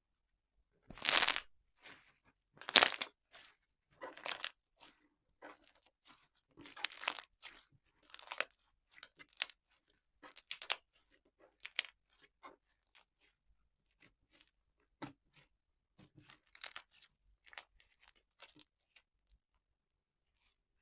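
Slime being pressed and worked by hand, giving a string of short crackling, crunchy pops, loudest about one and three seconds in, then coming more sparsely and dying away near the end.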